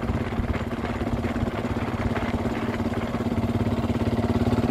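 A small river fishing boat's engine running steadily, with a rapid, even pulsing beat under a constant hum.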